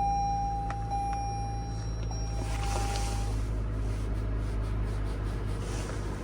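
Inside the cabin of a 2022 Toyota Corolla Cross, its 2-litre four-cylinder engine idling and the climate-control fan blowing, a steady low hum. A few light clicks come in the first two seconds, and a thin steady tone fades out about three seconds in.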